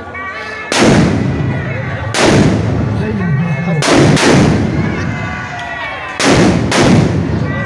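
Fireworks on a pole-mounted firework frame going off: four loud bangs a second and a half to two seconds apart, each one sudden and fading away over about a second.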